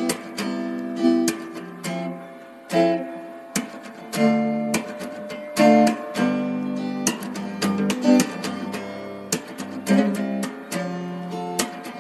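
Background music: an acoustic guitar strumming chords, with sharp strokes every half second or so and chords ringing between them.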